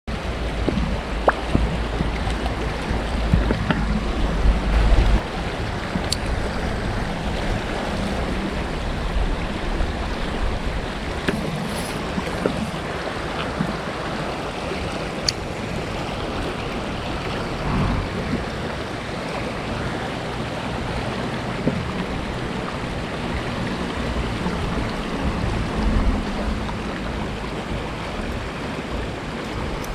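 A steady rush of moving water, with wind buffeting the microphone as a low rumble in the first few seconds and a few faint clicks.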